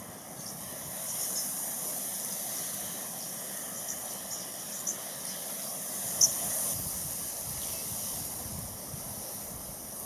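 Open-air bush ambience: a steady high hiss, with a few faint clicks and one sharper click about six seconds in, and a low wind rumble over the last few seconds.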